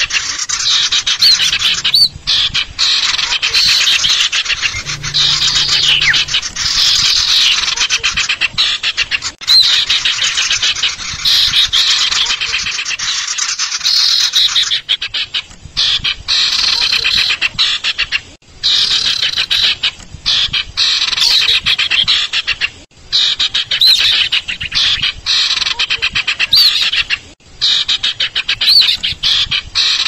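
Recorded calls of a female common iora (sirtu/cipoh) played as a bird lure: dense, rapid chirps and short falling whistles, repeated with only brief gaps.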